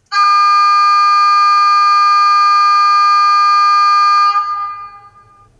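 Märklin BR 218 H0 model diesel locomotive's onboard sound decoder playing its signal horn: one long steady blast of about four seconds that then dies away.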